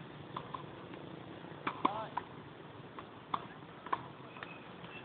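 Tennis ball struck by rackets and bouncing on the court: a series of short, sharp pops at irregular intervals, the loudest about two seconds in, followed by a brief squeak.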